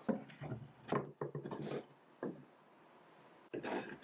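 Timber bracing strips and a plywood panel handled on a plywood workbench: a run of wooden knocks and rubbing scrapes over the first two seconds, then another short cluster of knocks near the end.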